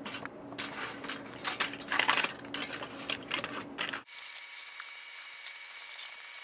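Aluminium foil crinkling and crackling as it is folded over a row of AAA batteries, in quick irregular crackles. About four seconds in it drops to fainter rustling.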